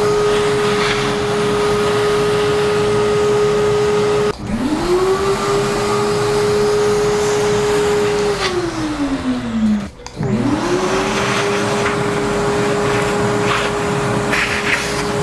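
Vacuum cleaner running with a steady whine, its hose nozzle sucking coffee grounds out of an electric coffee grinder's outlet chute. The whine breaks off about four seconds in and climbs back up to speed. Later it sinks slowly, breaks off, and climbs back up once more.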